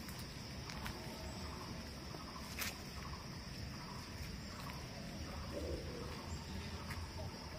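Steady high-pitched insect drone, with a single sharp click about two and a half seconds in.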